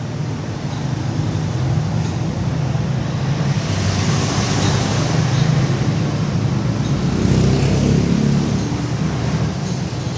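Steady rumble of motor traffic, swelling about four seconds in and again near the eight-second mark.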